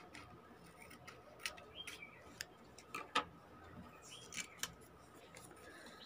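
Scissors snipping through coloured paper, then the cut paper pieces being handled and set down on a table: a few faint, scattered clicks and rustles, the loudest about three seconds in.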